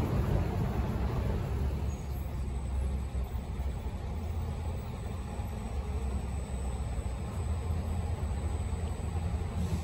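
Low, steady rumble of street traffic, a little louder at the start as a car passes close by.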